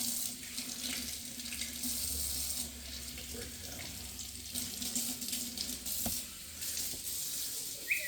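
Kitchen tap running, water splashing in the sink as raw meat is rinsed under it. A short high squeak sounds near the end.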